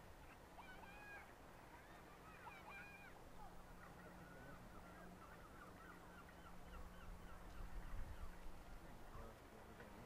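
Faint bird calls, many short chirps and squeaks overlapping, over a steady low hum. A low rumble swells about two thirds of the way through.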